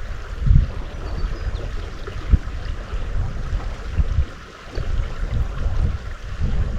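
River water flowing steadily, with irregular low rumbles and thumps across the whole stretch, like wind buffeting the microphone.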